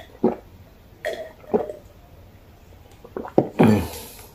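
A man gulping and swallowing water from a glass in several separate swallows, close to a clip-on microphone, with a louder, noisier sound about three and a half seconds in.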